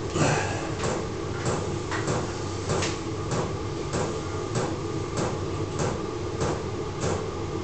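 A small 12 V diesel heater's fuel pump knocking steadily, about three knocks every two seconds, over a steady hum.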